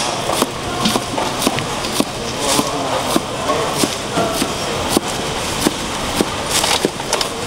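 Knife slicing the rind off a pineapple, each stroke ending in a sharp tap of the blade on a plastic cutting board, about twice a second, over a steady background hubbub.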